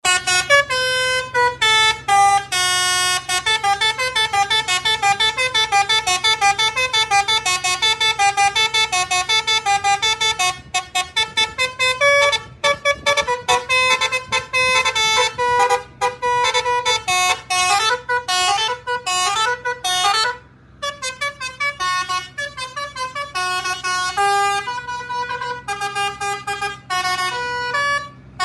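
An HDI-made telolet basuri bus horn plays a fast tune of short, loud, sharply pitched notes that jump up and down in pitch, with a short break about twenty seconds in.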